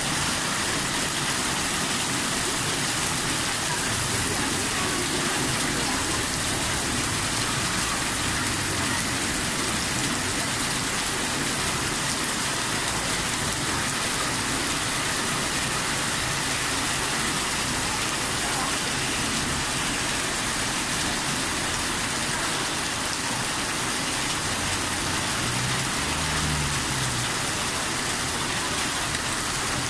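Heavy hail mixed with rain pouring down steadily onto the street and pavement, an even hiss with no let-up. A brief low hum rises and falls near the end.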